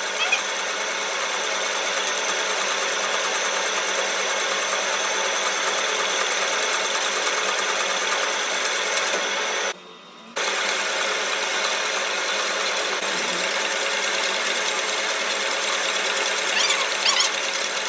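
Metal-turning lathe running steadily with a whirring machine noise, with a few brief high squeals near the end. The sound cuts out for about half a second around ten seconds in.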